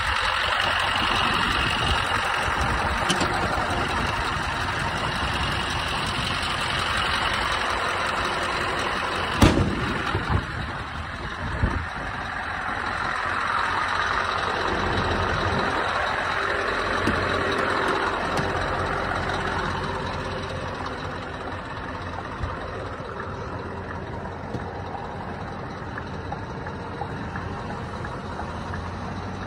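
A Scania R620's V8 diesel engine idles steadily. There is one sharp knock about nine seconds in and a few lighter knocks just after. The engine sounds quieter in the last third, heard from inside the cab.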